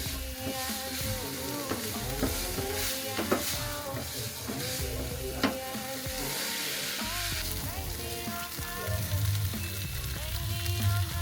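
Food sizzling and frying in a pan, stirred with a utensil that knocks against the pan now and then, under background music.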